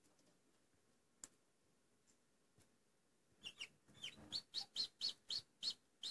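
Newly hatching chick, a Black Australorp–Barred Rock cross, peeping from its broken shell: a run of about ten short, high peeps, three to four a second, starting about halfway in.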